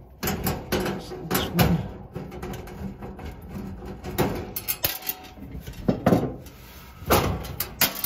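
Irregular metal knocks, clunks and scraping from working inside an electric dryer's sheet-metal cabinet, as the screws of the heating coil assembly are taken out and the assembly is handled.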